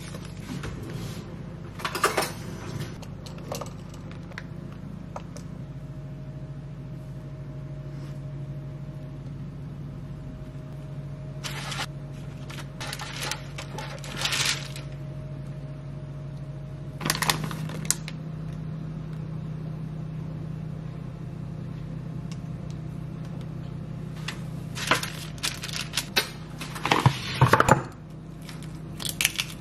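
Hands working puff-pastry dough on baking paper: scattered rustles and light knocks over a steady low hum. Near the end come a few sharp taps as an egg is cracked against a small glass bowl.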